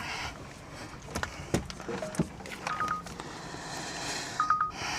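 A few sharp clicks, then several short electronic beeps at a fixed pitch: one around the middle and a quick pulsed group near the end.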